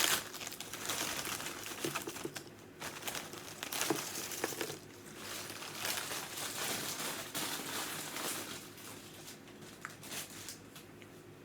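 Paper sandwich wrapper crinkling and rustling as it is handled, busiest in the first half and thinning out near the end.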